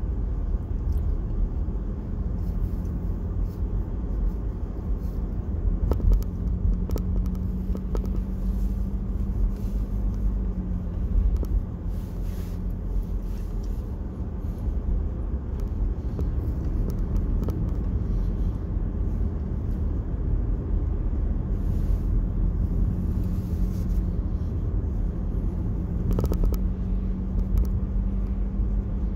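Steady low road and engine rumble of a moving car, heard from inside the cabin, with a faint hum that comes and goes and a few light knocks.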